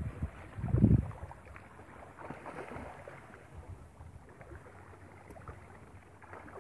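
Wind buffeting a phone microphone, with a low rumbling gust about a second in, then fading to a faint steady outdoor hiss.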